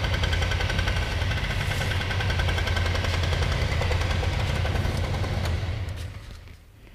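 Honda Dio scooter's small single-cylinder engine running steadily with a rapid, even beat. It dies away about six seconds in.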